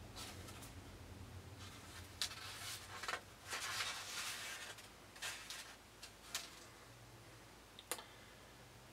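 Pages of a paperback book being leafed through: soft, faint paper rustles several times, with a small sharp tap near the end.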